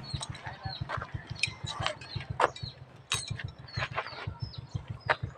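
Chickens clucking and calling in short sharp notes, over a steady low rhythmic thudding of about ten beats a second like an idling engine.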